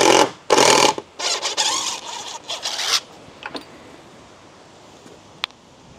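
Ratchet strap being cranked tight in a run of short ratcheting strokes, stopping about three seconds in, as it pulls the leaning shed frame back; one sharp click near the end.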